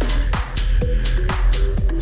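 Background electronic dance music with a steady four-on-the-floor beat: kick drums about twice a second, hi-hats and held synth notes.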